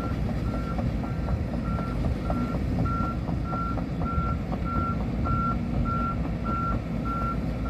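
Heavy machine's back-up/travel alarm beeping steadily, a little under two beeps a second, over the low rumble of a diesel engine running.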